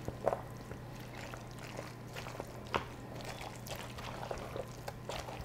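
A spoon stirring a thick, wet casserole mix of chicken, mayonnaise and canned soup in a plastic mixing bowl: soft squelching with scattered light scrapes and taps.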